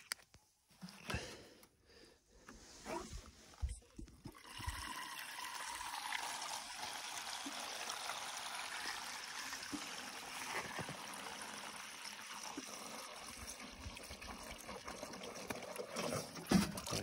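Water pouring from a plastic watering can into the neck of a large rubber balloon, a steady trickle starting about four seconds in, after a few faint clicks of the balloon being handled.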